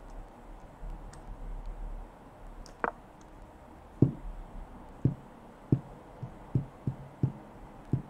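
A single sharp click as an online chess move is played, about three seconds in. From about four seconds in come some eight short, low knocks at uneven intervals.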